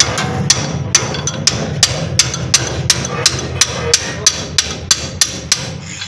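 Hammer blows on a steel bar driving out a Mitsubishi L300's rear leaf-spring shackle: sharp metal strikes at about three a second, stopping shortly before the end as the shackle comes free.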